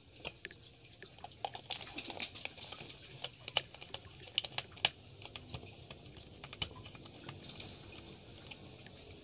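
Small screwdriver driving a screw into the plastic back case of a digital multimeter: a run of light clicks and scratching, densest in the first five seconds, then sparser.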